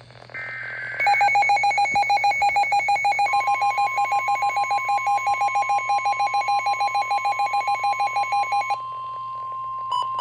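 Weather-alert tones: a brief warble of digital data tones, then a rapid pulsing two-tone beep, about six beeps a second, that stops just before 9 seconds in. About three seconds in, NOAA Weather Radio's steady 1050 Hz warning alarm tone starts and carries on under and after the beeps, over a low steady hum.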